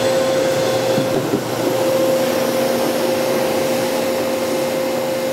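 Shop dust collector running steadily: an even hiss with a constant whine over it.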